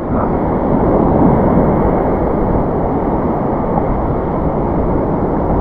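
Steady rushing noise of surf, with waves washing around a wading angler and wind rumbling on the microphone.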